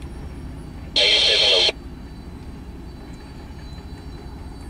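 Freight train cars rolling past with a steady low rumble. About a second in, a short, loud burst of radio scanner static starts and cuts off abruptly.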